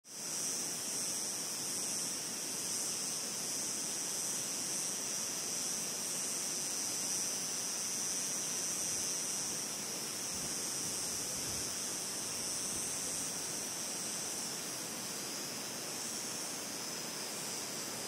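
Windy mountain ambience: a steady rush of wind with a bright, hissy edge that swells in at the very start and then holds even.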